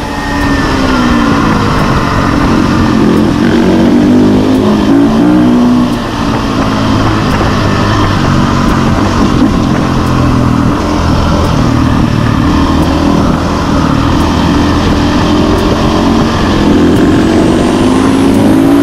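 KTM dirt bike engine heard from the rider's seat, its pitch rising and falling as the rider revs it and changes gear on the road, with a steady low rush of wind on the microphone.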